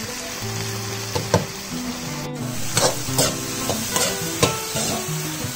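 A metal spoon stirring and scraping sliced brinjals (eggplant), shallots and curry leaves frying in oil in a pan, with repeated sharp clicks of the spoon against the pan over a steady sizzle.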